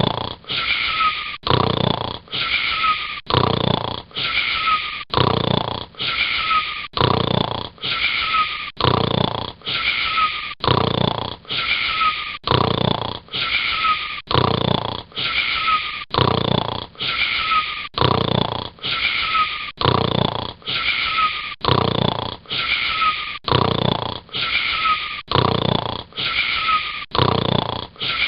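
Snoring repeated in a very even loop, about one snore a second, each with a rasping breath and a short whistle that falls in pitch.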